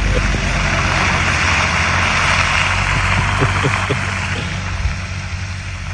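Pickup truck on the move: a steady low engine hum under a constant hiss of tyre and road noise.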